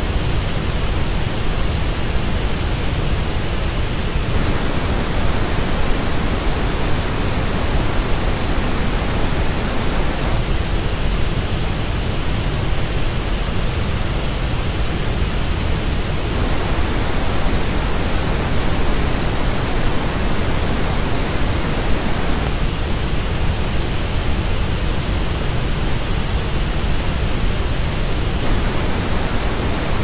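Pink noise that switches about every six seconds between the flat original reference and the same noise shaped by the measured frequency response of Sony MDR-7506 headphones, which has dips in the high treble.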